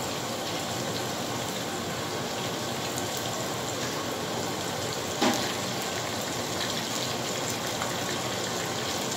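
Chopped onions sizzling steadily in hot oil in a wide nonstick pan, with one brief sharper sound about five seconds in.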